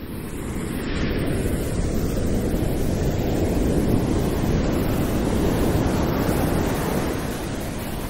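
Ocean waves: a steady rushing wash of surf that swells about a second in and eases off near the end.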